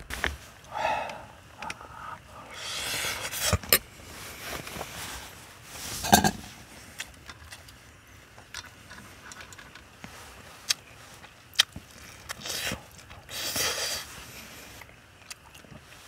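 A metal spoon scraping and clinking in a metal camping pot of cooked rice, with several sharp clicks of utensils knocking on metal between short stretches of scraping.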